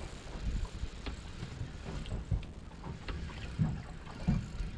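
Wind buffeting the microphone on an open boat at sea, a gusty low rumble, with a few light knocks.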